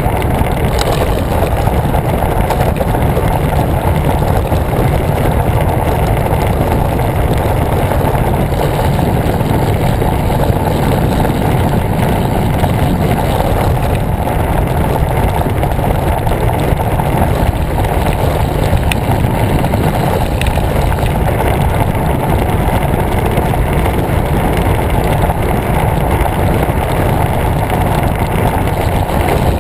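Steady rushing wind noise on the microphone of a camera mounted on a moving road bicycle, a loud even low rumble that does not change.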